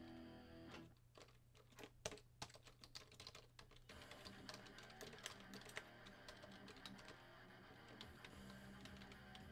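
Faint typing on a computer keyboard: a quick run of key clicks starting about a second in, then scattered keystrokes, over faint steady low tones.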